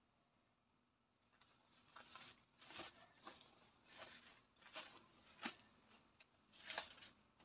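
Faint, soft swishes of a calligraphy brush on paper: a run of six or seven short strokes, starting about a second and a half in.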